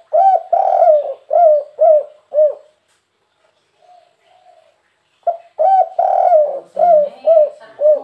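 Spotted dove (derkuku/tekukur) singing its cooing song twice, about five seconds apart. Each phrase is one or two short lead-in notes, a long coo, then three short closing coos, the 'kuk 3' ending prized by Indonesian dove keepers.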